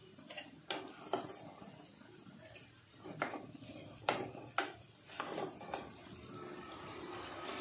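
Wooden spatula knocking and scraping against a clay cooking pot, about eight sharp knocks, as fried potatoes are lifted out. A faint sizzle of potatoes frying in mustard oil runs underneath.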